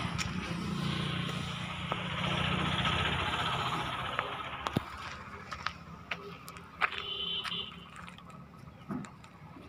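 A vehicle's engine running, fading away over the first four or five seconds, followed by scattered light clicks.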